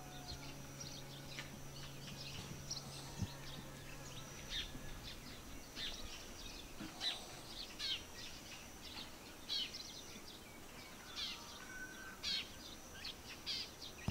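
Birds chirping outdoors: many short, quick calls repeating throughout, over a faint steady hiss of outdoor ambience.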